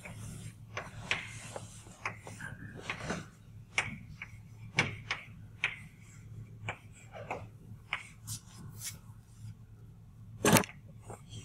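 Chalk writing on a blackboard: irregular sharp taps and short scrapes as the chalk strikes and drags across the board, with one louder knock near the end.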